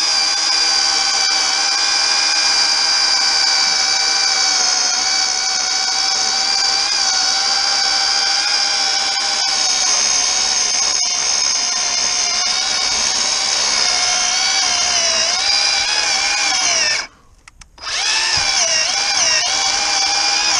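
Worx WG322 20V cordless electric chainsaw with a 10-inch bar, running under load as it cuts through a thick log of hard, solid wood: a steady motor-and-chain whine. The pitch sags and wavers as the motor labours in the cut, and near the end the saw stops for about a second and then starts again.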